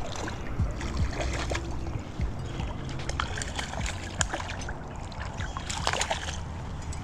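A small hooked carp splashing at the water's surface by the bank as it is reeled in. Many short, sharp clicks and knocks are scattered through the sound.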